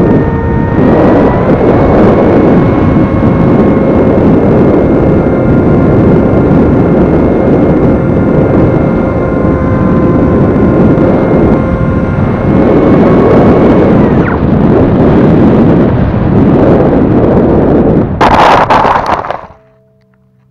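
Wind rushing over the onboard camera of a small electric RC plane in flight, with the motor's steady whine underneath until it stops about two-thirds of the way through. Near the end, a short, loud rustling impact as the plane lands in tall grass, after which the sound drops to a faint hum.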